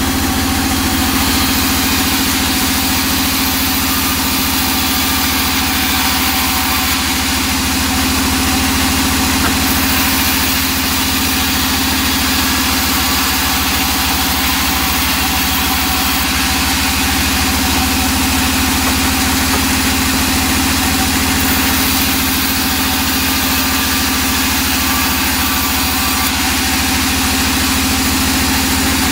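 Large sawmill band saw running steadily with a constant hum while a small teak plank is ripped lengthwise through the blade, the cutting adding a continuous hiss over the machine's drone.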